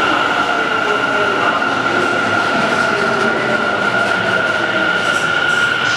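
Tobu 50050-series electric train slowing to a stop at an underground subway platform, with a steady high-pitched whine over the running noise and a few short hisses near the end.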